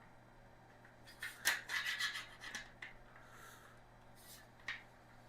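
Parts of a boltless storage shelf being handled and fitted together, rubbing and scraping against each other. A quick cluster of scrapes and clicks comes between about one and three seconds in, and a single click near the end.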